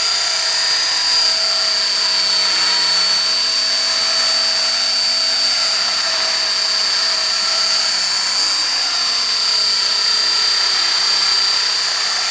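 Electric Belt-CP model helicopter with wooden main blades hovering: a steady high motor whine over the rotor's buzz, the lower tones wavering up and down in pitch as the rotor speed shifts.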